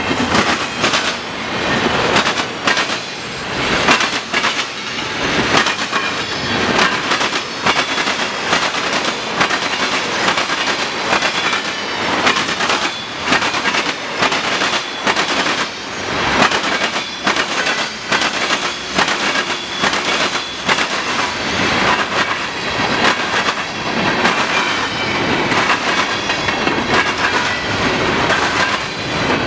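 Freight cars of a long manifest train rolling past, with a steady rumble and many sharp, uneven bangs as their wheels clatter over a railroad diamond crossing.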